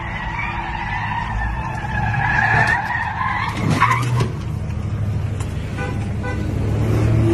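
Tyres squealing in a long, wavering skid for about three and a half seconds, over a low steady vehicle engine rumble, with a brief sharp sound about four seconds in.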